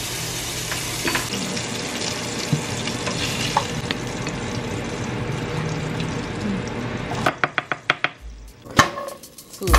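Food frying in a pan, a steady sizzle with a few light utensil clicks. About seven seconds in, a quick run of sharp taps starts and the sizzle drops away.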